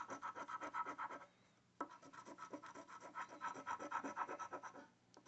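A coin scratching the coating off a paper scratch-off lottery ticket in rapid back-and-forth strokes, with a short pause just over a second in before the scratching resumes.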